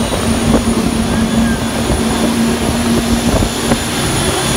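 Coast Guard boat running under way at speed: a loud, steady rush of engine and water noise, with a steady hum that drops out about three seconds in.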